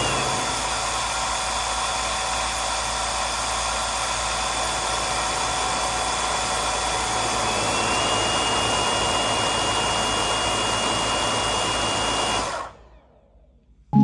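Vorwerk Kobold VB100 vacuum cleaner running steadily: a rushing motor and air noise with a thin high whine that slides up slightly about halfway through. The sound stops abruptly about a second and a half before the end.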